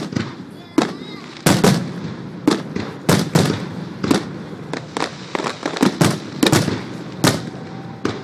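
Aerial fireworks shells bursting in an irregular rapid series, about two sharp bangs a second, each with an echoing tail.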